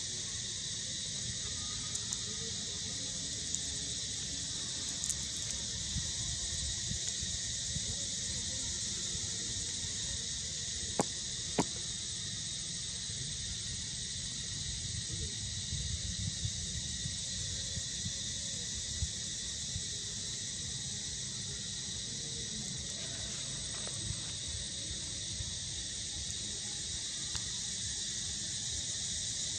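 Steady insect chorus: an even, high drone that does not let up, over a low rumble. Two sharp clicks come close together about eleven seconds in.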